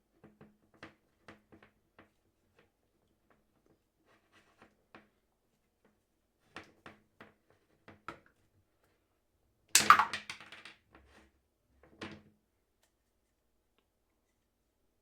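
Light clicks and snips of hand-held electrician's pliers and scissors cutting wire, in small scattered groups, with one louder sharp snap near the ten-second mark.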